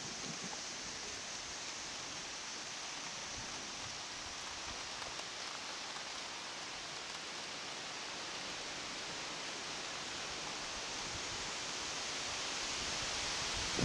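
Steady rain falling: a continuous, even hiss that grows slightly louder near the end.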